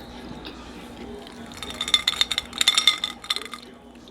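Rapid glassy clinking and rattling of tableware for about two seconds, starting a second and a half in, with a bright ringing edge.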